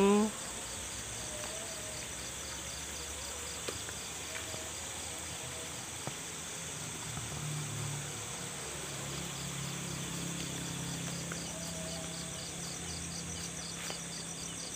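Insects chirping in a steady, evenly pulsing high-pitched chorus.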